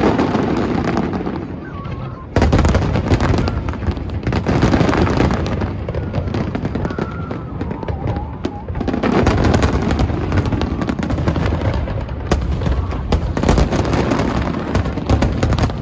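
Fireworks finale: a dense barrage of aerial shells bursting, with deep booms and crackling that come almost without a break. It jumps suddenly louder a little over two seconds in.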